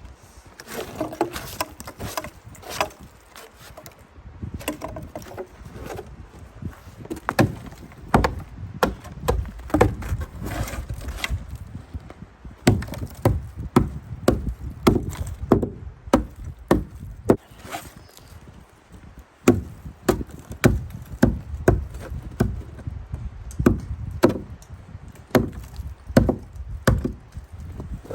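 Hand tool striking and chipping ice off stairs: repeated sharp knocks at an uneven pace, sparse at first and then about one or two a second from roughly eight seconds in.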